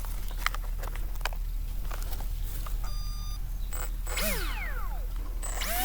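Small handling clicks and a short electronic beep, then a brief falling whine. Near the end, the RC plane's BE1404 4300 kV brushless motor spins up into a steady high whine.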